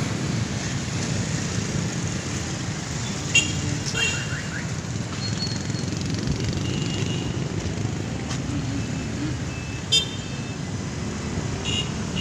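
Steady hum of street traffic, with a few brief high-pitched chirps or toots and two sharp clicks, one about three and a half seconds in and one around ten seconds.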